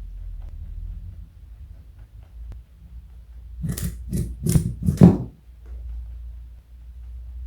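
Rabbit eating a carrot: faint chewing, then four loud crunches about half a second apart a few seconds in.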